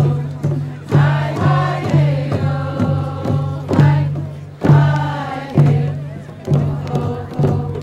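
Many voices singing a Northwest Coast Native song together, over hide frame hand drums beaten in a steady beat about twice a second.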